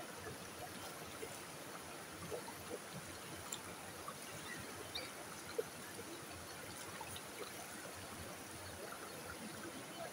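Creek water running over rocks: a steady rush with small trickles and plops scattered through it.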